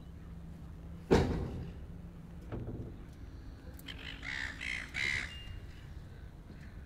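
A loud knock about a second in and a weaker one soon after, then a bird calling about five times in quick succession.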